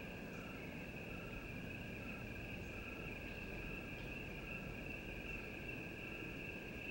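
Crickets chirping: a steady high trill with a softer chirp pulsing about twice a second, over a low hiss of background noise.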